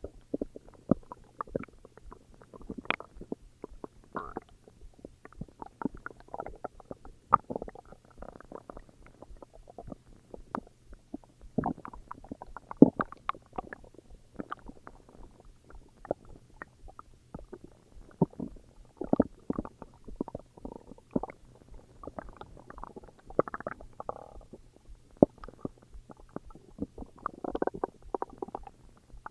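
A person's stomach growling and gurgling: an irregular run of short pops and rumbles, with a few louder gurgles around the middle and near the end.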